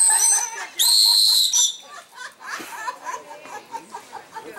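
Trainer's whistle blown twice, a steady high-pitched note each time: the first ends just after the start, and the second, louder blast comes about a second in and lasts under a second. Quieter voices and splashing follow.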